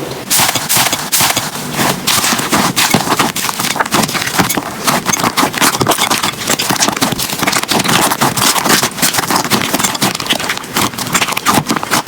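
Slime being squished and pressed, a dense, irregular run of sticky clicks, pops and crackles.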